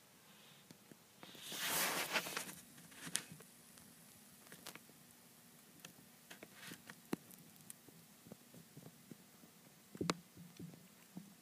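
Chinese dwarf hamster in wood-shaving bedding: a short burst of rustling about two seconds in, then faint scattered small clicks and ticks.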